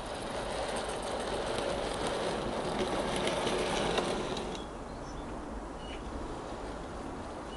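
Model of the Ffestiniog Railway 0-4-0TT 'Prince' running with a short train of coaches: its small motor and wheels on the track make a steady running noise with light clicks, which drops away about four and a half seconds in as the train passes out of earshot.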